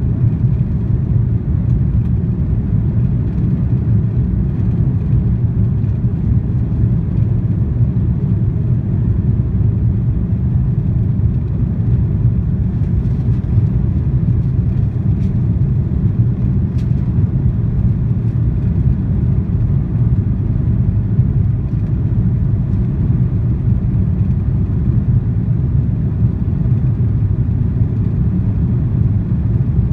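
Steady low rumble of an Airbus A330-300's engines and rushing air, heard inside the passenger cabin over the wing while the airliner climbs after takeoff.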